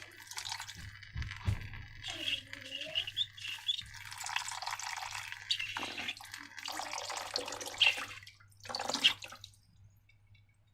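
Wet liquid sounds of slime being poured and dripping, with two sharper splashes near the end, stopping about nine and a half seconds in.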